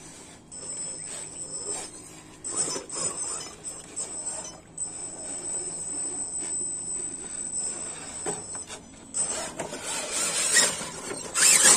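Radio-controlled scale crawler truck's electric motor and gears whining high in stop-start spurts as it drives through a muddy puddle and climbs the dirt bank. Louder scraping and knocks of tyres and body on the dirt come near the end.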